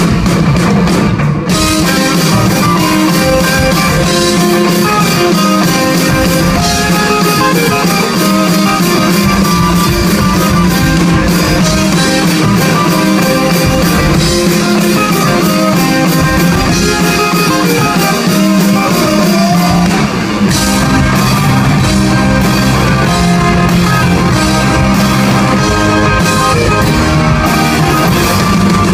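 Rock band playing live, with guitar and drum kit, in an instrumental stretch; a brief drop about twenty seconds in, after which the low end comes in heavier.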